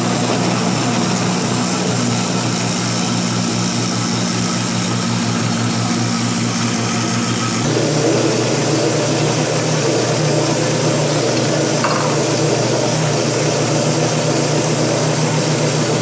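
Electric countertop blender running steadily, puréeing chunks of boiled cassava; its sound changes about halfway through.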